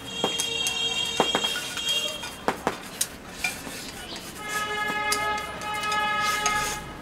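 Chopsticks clicking against ceramic bowls as two people eat, with several sharp clicks in the first three seconds. A steady held tone sounds in the background, fuller in the second half.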